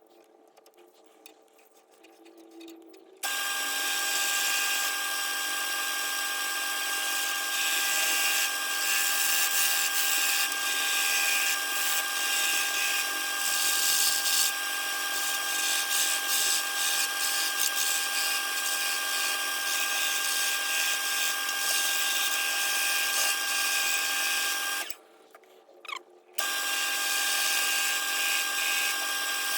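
Wood lathe motor running with a steady whine at its slowest speed while a sharpened 1-inch skew chisel cuts the spinning scrap wood with a continuous hissing of shavings. The sound cuts in abruptly about three seconds in and drops out briefly near the end.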